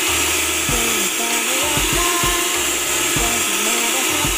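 Electric hand mixer running steadily, its beaters whisking a thin liquid in a bowl, over background music with melody and low thumping beats.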